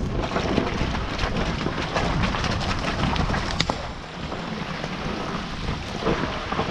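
Rumbling wind buffeting the microphone, with scattered sharp clicks and crackles.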